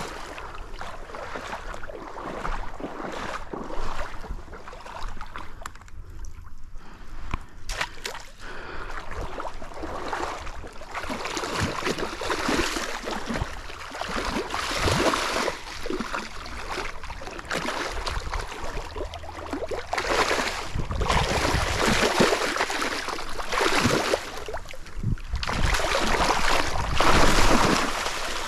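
A hooked chinook salmon thrashing and splashing at the surface of a shallow stream in repeated, irregular surges, the loudest near the end.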